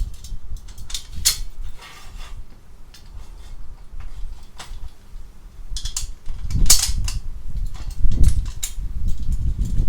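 Metal tools and parts being handled: scattered sharp clicks and clinks, with low rumbling knocks in the second half.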